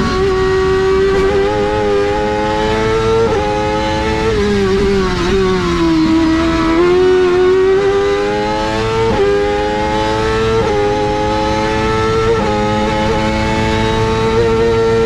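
BRC B59 race car's engine at high revs under hard driving, heard from inside the cockpit. Its pitch climbs and dips and jumps abruptly several times at gear changes, with a longer drop and recovery about six seconds in.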